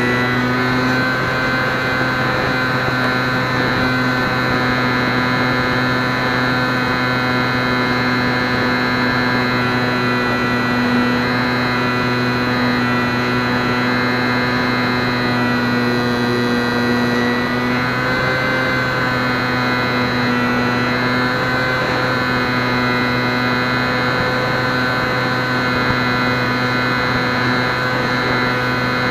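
Electric motor and propeller of a HobbyZone Champ RC plane running steadily in flight, heard from a keychain camera on the plane: a steady humming whine whose pitch wavers slightly a few times past the middle.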